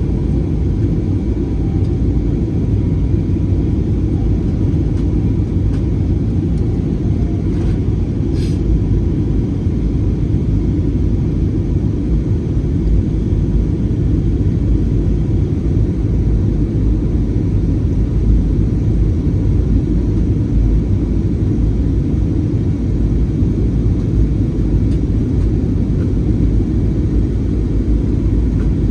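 Airbus A320 jet engines and airflow: a steady low rumble that holds level throughout, with a faint steady tone above it and one brief click about eight seconds in.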